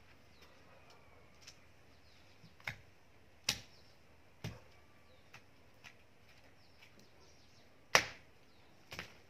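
Garden hoe chopping into soil: a series of irregular strikes, roughly a second apart, the loudest near the end.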